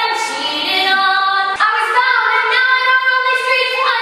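A young, high voice singing unaccompanied, holding long sustained notes and moving to a new note about a second and a half in.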